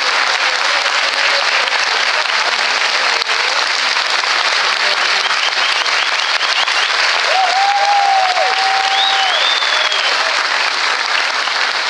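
A large audience applauding, steady dense clapping throughout. One voice briefly calls out about two-thirds of the way through.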